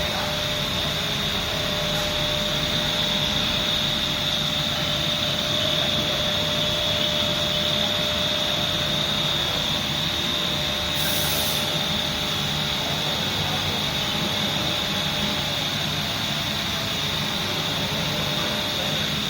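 Hot plate plastic welding machine running with a steady mechanical hum and a constant high whine. A short hiss about eleven seconds in.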